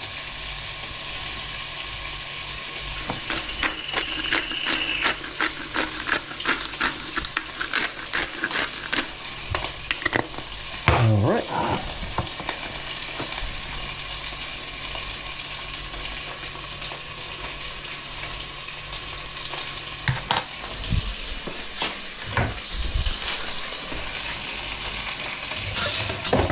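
Smoked bacon sizzling steadily as it fries in olive oil in a pan, with a run of quick clicks and taps from about three to twelve seconds in and a few more near the end.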